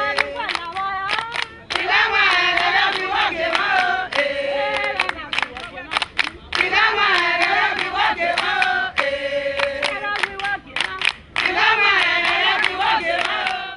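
Traditional Benin (Edo) group song: several voices singing together in short repeated phrases, over sharp percussive hits.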